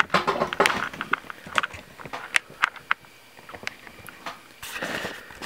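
Handling noise: irregular clicks, taps and knocks as equipment on a desk is moved and set down, with a longer scraping rustle near the end.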